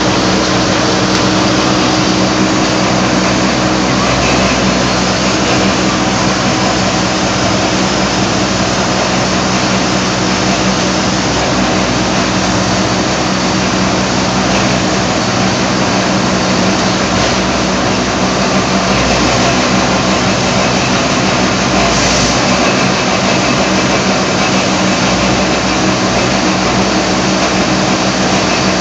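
Heecon transporter, a greenhouse substrate-removal machine, running steadily as it pulls out rockwool slabs and throws them into a container. The sound is a loud, continuous machine noise with a constant hum.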